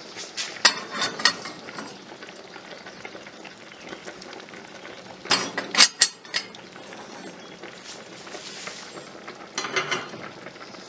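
Three short bursts of clinking and clattering from hard objects being handled, about a second in, around the middle and near the end.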